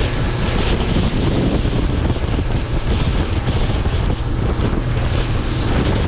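Strong wind buffeting the microphone over the steady noise of a small outboard-powered fishing boat running at speed across open water.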